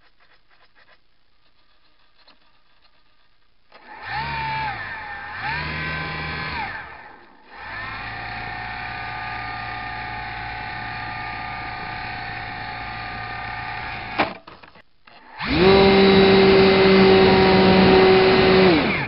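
A Squirt 700 RC plane's motor and propeller whining, heard from the onboard camera. It comes in two short throttle bursts about four seconds in, then runs steady for several seconds. It cuts out briefly and comes back louder near the end.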